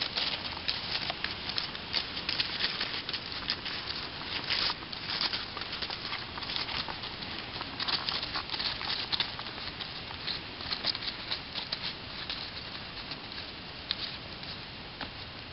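Horses' hooves walking through dry fallen leaves and gravel, a steady crackling and rustling of many small crunches.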